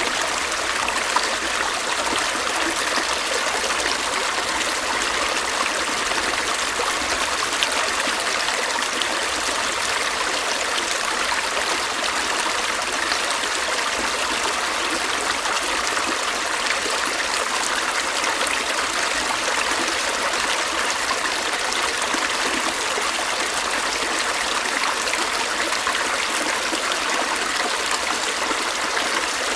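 Stream water running and trickling in a steady, even rush with no change.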